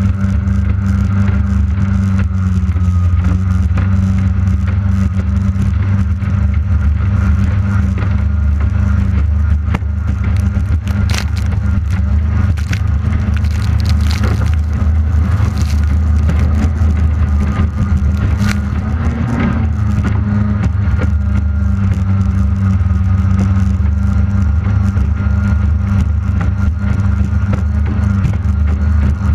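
Outboard engine of a J-Hydro racing hydroplane running steadily at racing speed, loud and unbroken, heard from on board with the rush of wind and water.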